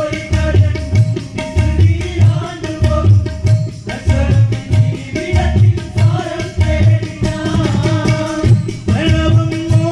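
Live Malayalam devotional bhajan: a male voice singing a melody with violin, over hand drums that include a clay-pot ghatam keeping a steady beat of about two to three strokes a second. A long note is held near the end.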